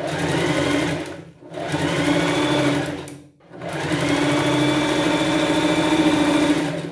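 Sewing machine stitching in three runs, stopping briefly twice: topstitching along a seam.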